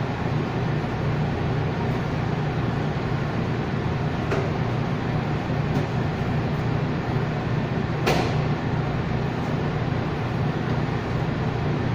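Steady, loud low hum of commercial bakery kitchen machinery and ventilation, with a few short sharp clatters, the loudest about eight seconds in.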